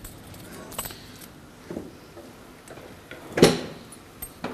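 A spoon stirring sugar syrup in a pot, giving a few scattered light knocks against the pot, with one louder clunk about three and a half seconds in.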